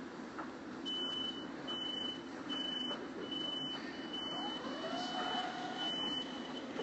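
A series of about seven high electronic warning beeps, roughly one a second, over the steady rumble of a railway station, with a fainter tone rising and then falling midway through.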